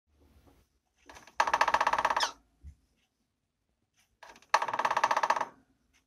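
Male cockatiel drumming his beak in two rapid bursts of taps, each about a second long, with a hollow ring. This beak-tapping is a courtship display that lures the female and shows he has found a nest site.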